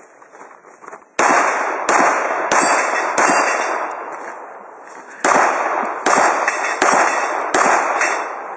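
Rifle fired rapidly: eight shots in two strings of four, about two thirds of a second apart, with a pause of about two seconds between the strings. Each shot is sharp and echoes away before the next.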